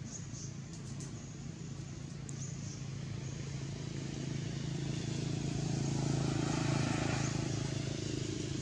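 Low steady hum of a motor vehicle engine, growing louder about halfway through and easing off near the end, as if passing by.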